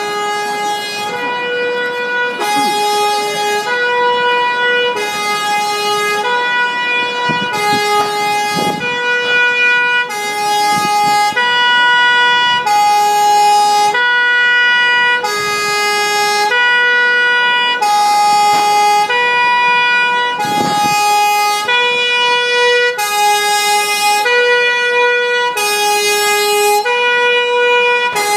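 Belgian fire engine's two-tone siren sounding loudly and continuously, switching between a high and a low note about every second and a quarter.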